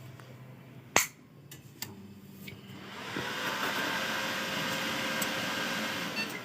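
Desktop computer powering on: a sharp click about a second in, then the cooling fans spin up into a steady rushing whir that drops off near the end. This is the PC starting after its RAM was replaced.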